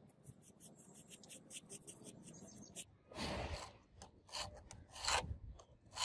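Small metal clicks and taps, then several short scraping rubs as a steel knife blade and a pair of digital calipers are handled.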